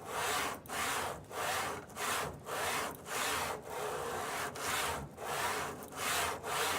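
Steady back-and-forth rasping strokes of a hand tool working material, about three strokes every two seconds.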